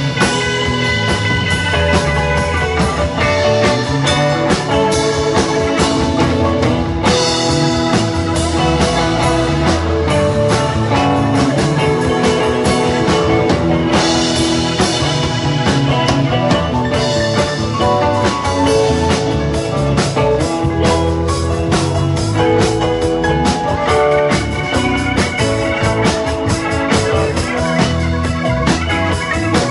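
Live rock band playing an instrumental jam: electric guitars, bass guitar and a drum kit, with no singing.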